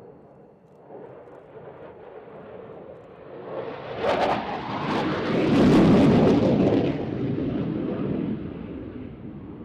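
Aircraft flying past, a rushing engine roar that swells to its loudest about six seconds in and then eases off.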